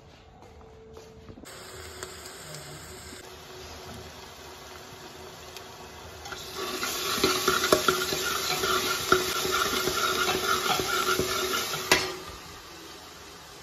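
Masala frying in oil in a metal pot, sizzling loudly while a steel ladle stirs it, with many sharp clinks and scrapes of the ladle against the pot. It starts about halfway in and cuts off suddenly near the end.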